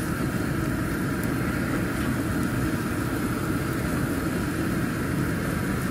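Kitchen exhaust fan running steadily: a low rush of air with a faint steady tone above it.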